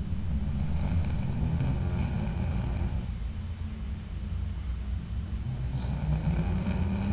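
A man snoring in his sleep: a low snore lasting about three seconds, a quieter lull, then the next snore starting about two seconds before the end.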